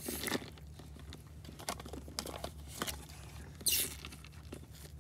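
Small plastic toy dolls being handled and dipped in a bowl of water: scattered light clicks, taps and rustles, two of them louder, at the start and a little before four seconds in, over a low steady hum.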